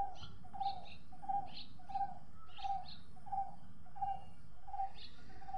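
A bird repeating one short low note at an even pace, about three notes every two seconds, with scattered higher chirps from small birds.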